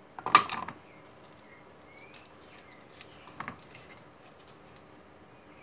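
Clatter of bench work: a sharp, brief rattle of an object set down near the start, then a few lighter clicks about three and a half seconds in as the circuit board and its ribbon cables are picked up.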